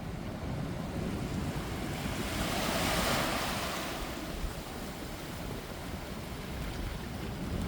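Ocean waves breaking on a beach, one wave washing in and building to a hiss about three seconds in before falling back, with wind buffeting the microphone.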